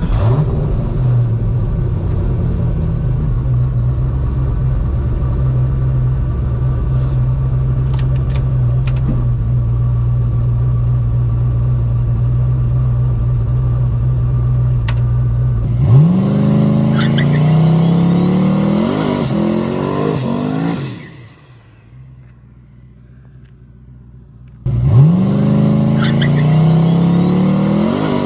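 Turbocharged 5.3 LS V8 in a Fox-body drag car, held at a steady engine speed on the line. About 16 s in it launches, the revs climbing and dropping back through the gear changes under a rising turbo whine. After an abrupt drop to a low background, the same launch is heard again, starting suddenly near the end.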